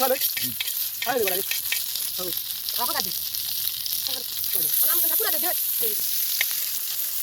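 Food frying in hot oil, a steady sizzle, with people talking in the background.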